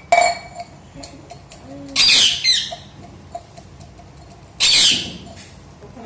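Rose-ringed parakeet screeching three times: a short call at the start, then two longer harsh calls about two seconds in and near the end, with a few faint ticks between them.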